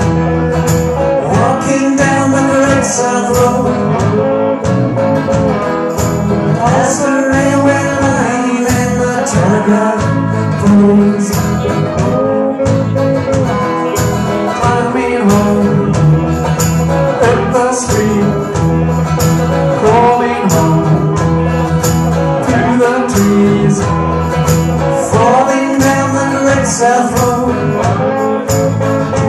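A live band playing a song: electric guitars, bass guitar and drum kit, with sung lead vocals over them, steady and loud.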